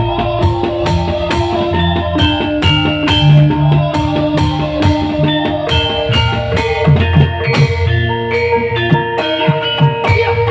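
Live band music with a steady drum beat, bass and plucked guitar.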